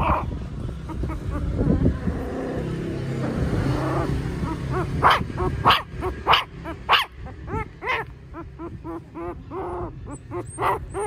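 Newborn puppies crying: after a low muffled rumble, loud high-pitched yelps begin about five seconds in, then a quick run of short whimpering squeaks, several a second.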